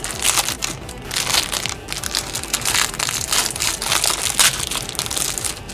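Plastic wrap crinkling and crumpling in irregular rustles as it is pulled off a remote control.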